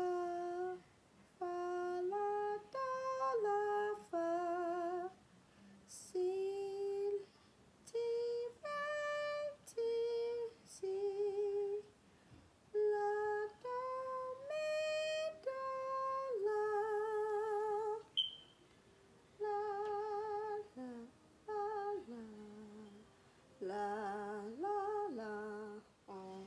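A woman singing unaccompanied, one held note after another with vibrato, stepping up and down in pitch with short breaks between phrases: solfège sight-singing practice in the harmonic minor. Near the end the notes drop lower and one slides up and back down.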